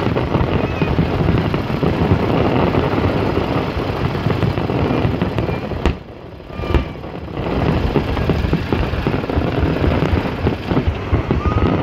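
Fireworks display going off continuously: a dense spray of crackles over a low rumble of bursts. It drops away briefly about six seconds in and then picks up again.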